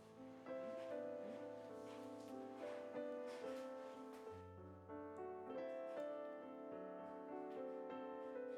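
Background music: a gentle piano-like melody over held low bass notes.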